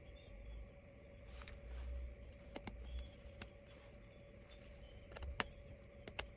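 Scattered light clicks and taps of small repair tools and tiny parts being handled during tablet repair work, over a faint steady hum.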